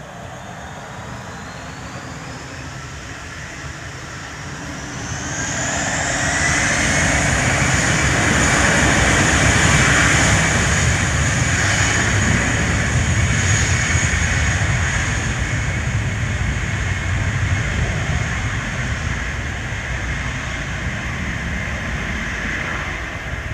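Jet airliner's engines spooling up to takeoff thrust: a whine rising in pitch over the first five or six seconds, then loud steady jet noise at full power that slowly fades.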